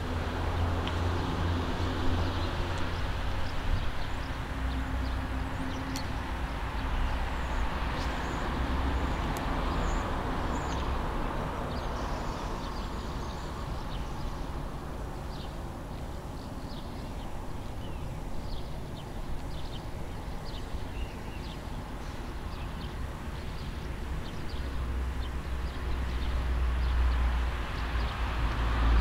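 Road traffic passing over a bridge: a steady low rumble and tyre hiss that swell and ease, growing louder toward the end.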